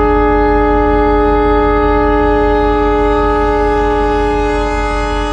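A train's air horn sounding one long, steady blast of several notes at once, loud and close, over the low rumble of the train.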